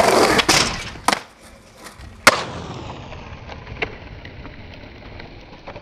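Skateboard rolling on asphalt, the wheels giving a steady rushing noise that fades out. A loud burst at the start is followed by several sharp clacks of the board, the loudest just over two seconds in.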